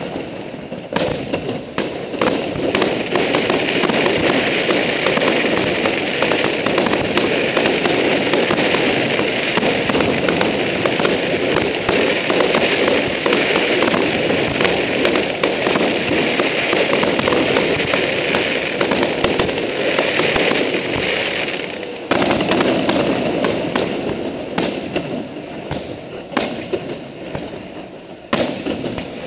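Aerial fireworks display: shells bursting in a dense, continuous barrage of bangs and crackle, briefly dropping off about 22 seconds in before picking up again.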